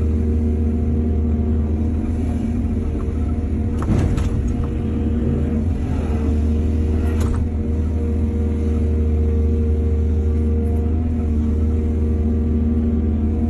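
Heavy diesel engine of an excavator running steadily under load, with two sharp knocks, the larger about four seconds in and another about seven seconds in.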